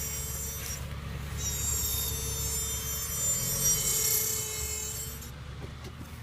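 Brakes of a 2004 Honda Accord V6 squealing with a high-pitched rubbing whine over low road rumble. The squeal breaks off briefly about a second in and stops a little after five seconds.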